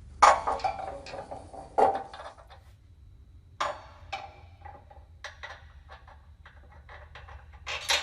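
Steel bracket, bolt and bushing knocking and clinking as they are handled and fitted by hand onto a planter row unit's parallel arm: irregular sharp metal knocks with brief ringing, the loudest just after the start, just under two seconds in and near the end, with lighter clicks between.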